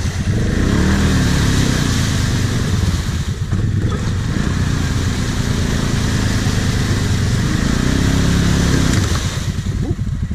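Suzuki KingQuad ATV's single-cylinder engine revving up and down in several surges as it tries to drive out of deep mud, its wheels spinning; the tow strap is getting wound around a tyre.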